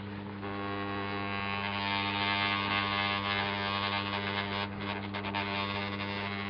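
Electric vibrating plate (vibration table) running at full strength under a plaster mould with a steady mains-frequency hum and a rattling buzz. The buzz builds about half a second in and eases near five seconds. The vibration shakes air bubbles up out of the wet plaster.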